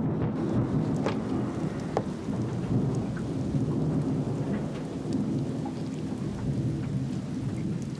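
Stormy ambience of steady rain under a low, continuous thunder-like rumble, with a few faint clicks scattered through it.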